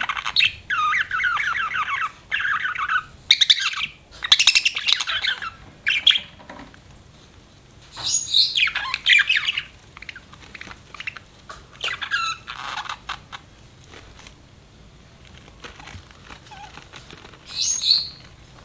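Budgerigar chirping and chattering in rapid warbling phrases, several bursts with short pauses between them, then a brief chirp near the end.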